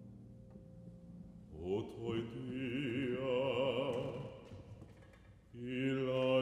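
Classical male singer holding a long note with wide vibrato after sliding up into it, over the fading ring of concert harp notes. About five seconds in there is a brief hush, then he starts a new held note.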